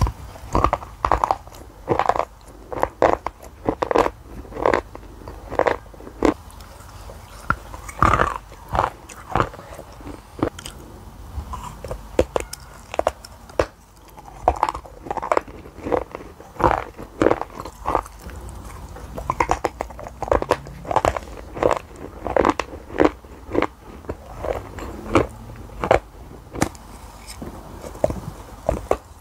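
Close-miked crunching bites into a brittle white chalky slab and chewing of the pieces. Sharp cracks come about once or twice a second, with chewing between them.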